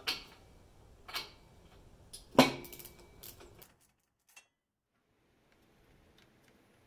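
A few separate metal clicks and clinks from a ratchet and 13/16 spark-plug socket as the old spark plug is backed out, the loudest about two and a half seconds in.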